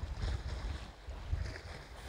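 Wind buffeting the microphone in an uneven, gusting low rumble, over the faint wash of choppy lake water lapping against the stone embankment.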